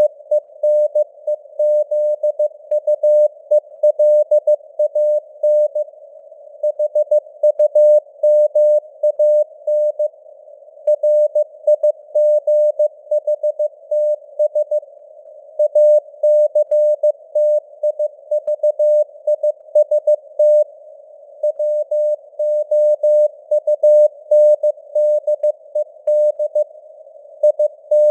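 Morse code (CW) sent at 15 words per minute as a keyed tone of about 600 Hz, in short dots and longer dashes with longer pauses between words. Underneath is simulated radio band noise, a faint narrow hiss around the tone, and the signal strength fades up and down (QSB).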